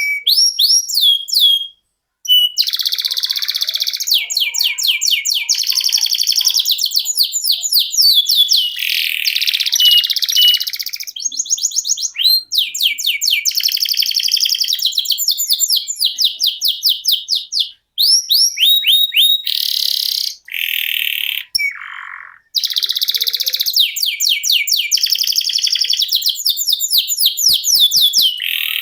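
Canary singing a long rolling song: rapid runs of repeated downward-sweeping notes and fast trills, moving from one phrase to the next with only brief pauses.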